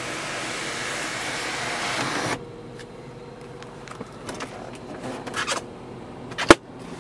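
Electric sunroof mechanism of a 2006 Range Rover Vogue whirring as its motor drives, stopping abruptly about two seconds in. Light clicks follow as the sun visor is handled, with one sharp snap near the end.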